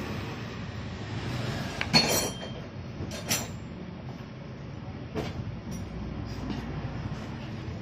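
Metal engine parts and tools clinking as a motorcycle engine is assembled: one sharp ringing clink about two seconds in, the loudest, then a smaller one and a few lighter knocks, over a steady low rumble.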